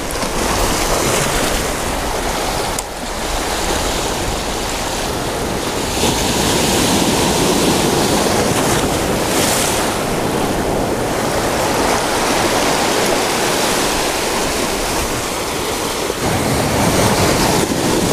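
Ocean waves washing and breaking over a lava-rock shoreline, a continuous rush of surf that swells louder about six seconds in and again near the end.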